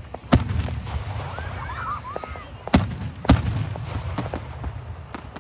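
Aerial fireworks shells bursting overhead: one loud bang just after the start and two more close together about three seconds in, each followed by a low rolling rumble, with smaller cracks in between.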